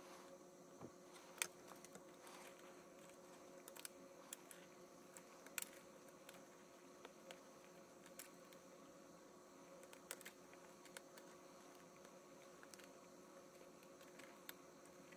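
Faint, scattered small clicks and taps of a screwdriver tip and fingertips on a laptop's mini PCIe Wi-Fi card and its antenna connectors, over a low steady hum.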